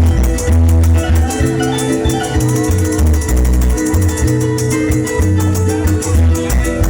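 Joropo music played by a llanero ensemble: plucked harp melody over strong, repeated bass notes, with cuatro strumming and shaking maracas keeping a fast, steady rhythm.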